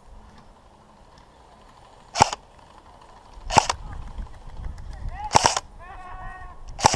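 Airsoft guns firing four single sharp shots, a second or two apart.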